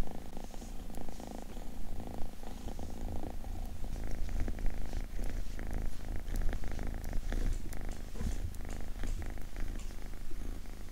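A domestic cat purring close by, a continuous rapid low throb. Light rustling and clicks join in from about four seconds in.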